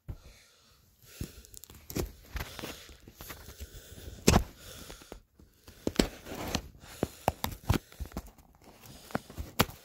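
Cardboard retail box of underwear being opened and handled by hand: a run of irregular scrapes, rustles and sharp clicks, with the loudest snap about four seconds in.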